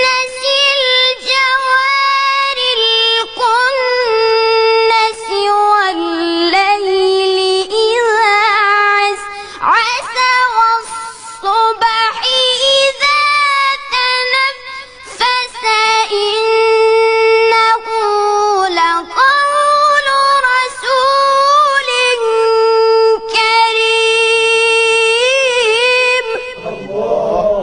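A reciter's voice chanting the Quran in the melodic mujawwad style, with long high held notes and ornamented melismatic turns and only brief breaks.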